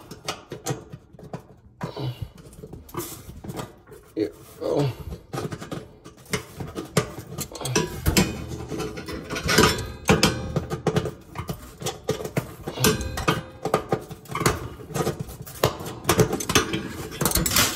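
Pliers clinking and scraping against the metal ignitor bracket and sheet-metal broiler compartment of a gas oven: irregular knocks and clicks.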